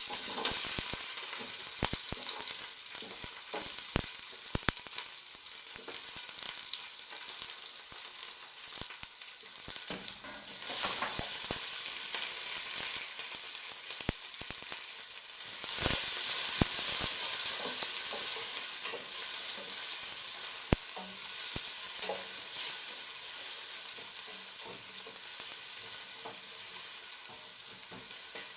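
Onions sizzling as they fry in hot oil in a cooking pot, with sharp clicks and knocks of a utensil against the pot as they are stirred. The sizzle swells louder about ten seconds in and again about sixteen seconds in.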